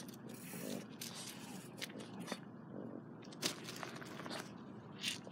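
Intermittent rustling and crackling, with a few short, sharp scratchy noises.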